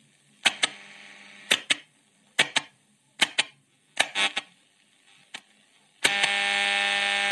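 Piano-key band-switch buttons of a Meridian 210 radio clicking as they are pressed one after another, mostly as quick double clicks, about once a second. The loudspeaker's output cuts in briefly after each switch and fades, then comes back loud and steady about six seconds in.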